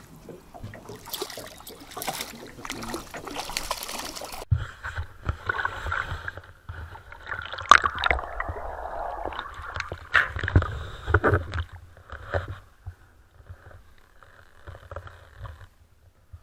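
Water splashing as a landing net is plunged in after a hooked trout, then the net-mounted camera goes under: muffled underwater sloshing and gurgling with knocks, starting abruptly about four and a half seconds in. It grows quieter about three-quarters of the way through.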